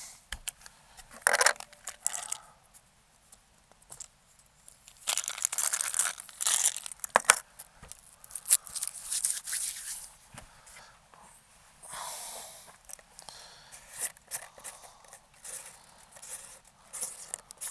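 Hand handling of .25 calibre airgun slugs and their packaging while loading a magazine: irregular rustling and scraping bursts with a few sharp clicks.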